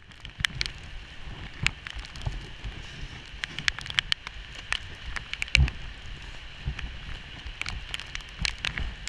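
A dirt bike clattering over a rough, wet dirt trail: a steady hiss with many sharp knocks and rattles, and one heavy thump a little past halfway.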